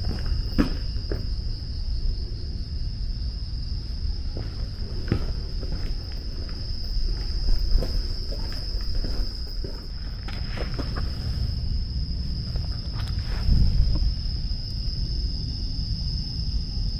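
Night insects calling in a steady, high-pitched continuous trill, with scattered footsteps and a low rumble underneath.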